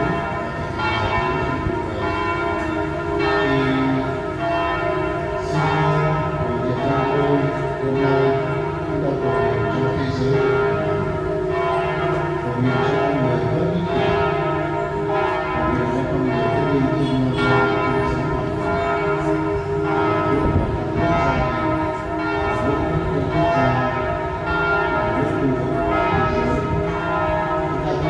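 Church bells of Hanoi's St. Joseph's Cathedral pealing, several bells struck one after another so their ringing overlaps into one continuous sound.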